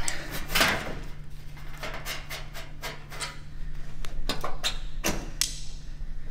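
A carbon arrow with a steel broadhead being pulled back out through the hole it punched in a 17-gauge steel plate, then handled: a scatter of sharp clicks, scrapes and knocks of the shaft and broadhead against the steel.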